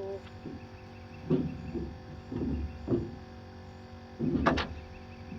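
A tangled cast net being handled: a handful of short rattles and knocks, with the loudest clatter about four and a half seconds in.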